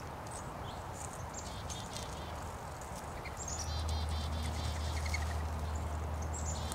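Small songbirds giving short high chip calls and quick twitters, many times, with sharp little clicks, over a steady background hiss. A low steady hum comes in about halfway through.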